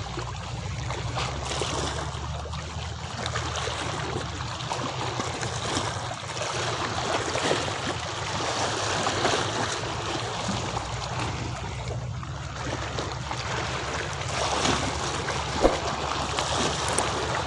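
Sea water lapping and sloshing against the pier, over a steady low rumble, with one sharp knock near the end.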